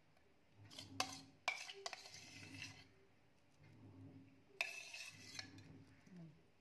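A spoon stirring and scraping thick milk cream in a stainless steel pot. The spoon clinks sharply against the pot about a second in, again half a second later, and near the end, each clink followed by a scratchy scrape.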